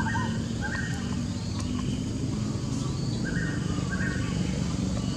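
Birds chirping in two pairs of short, flat notes, one pair at the start and one about three and a half seconds in, over a steady low rumble.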